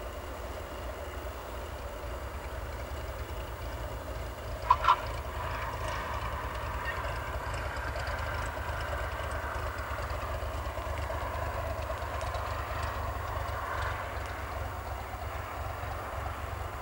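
Cessna 172's piston engine running at low power through the landing rollout, swelling and fading as the aircraft passes. About five seconds in come two sharp tyre chirps in quick succession as the main wheels touch the runway. A steady low rumble sits underneath.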